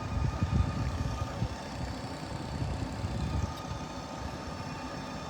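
Utility trucks and heavy equipment engines running: a steady low rumble, heavier for the first few seconds, with steady tones above it.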